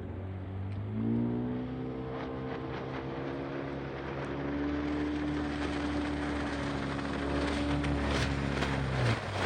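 An engine running: its pitch rises about a second in, holds steady, then drops near the end.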